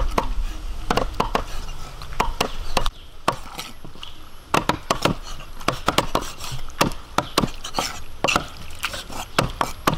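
Knife chopping food on a chopping board: irregular sharp strokes, a few a second, with a short lull about three seconds in.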